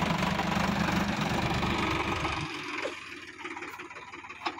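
Sonalika DI-50 RX tractor's diesel engine running as it pulls a loaded trolley, its low sound dropping away sharply about two and a half seconds in. A sharp click near the end.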